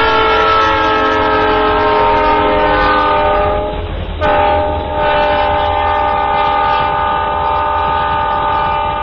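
Train horn sounding in two long blasts: the first breaks off about four seconds in, and the second is held for close to five seconds. A low rumble from the train runs underneath.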